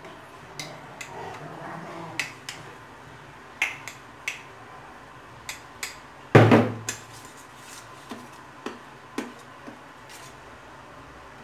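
Metal spoon clinking and tapping against a glass jar and a steel plate as lapsi pickle is spooned into the jar, a dozen or so sharp clicks spaced irregularly. About six and a half seconds in there is one louder, heavier knock.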